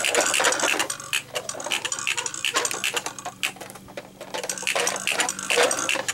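Ambi Toys Max pull-along toy dog rolling across carpet on its string, its plastic wheels and nodding head and wagging tail giving off a fast, irregular clicking and clacking.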